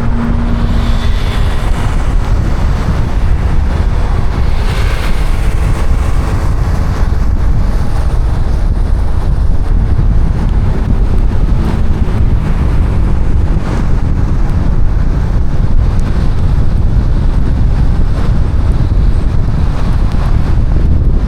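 Car driving in heavy rain: a loud, steady rumble of tyres on the wet road mixed with the rush of rain and wind on the car.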